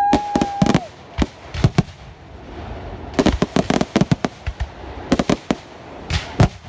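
Fireworks display: repeated sharp bangs and crackles, thickest about three to four and a half seconds in and again about six seconds in.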